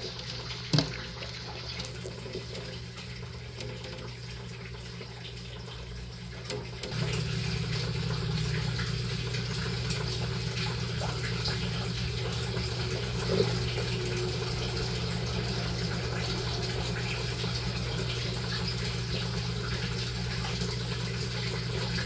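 Steady running water with a low hum underneath, which steps up in level about seven seconds in. A brief knock sounds near the start.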